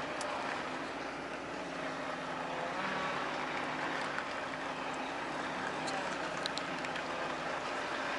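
Volvo truck's diesel engine running steadily at low speed while the rig reverses slowly, with a few faint clicks.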